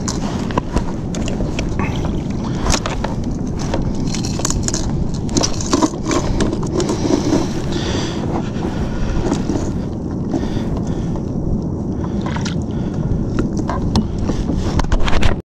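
Steady wind rumble on the microphone, with scattered small clicks and knocks.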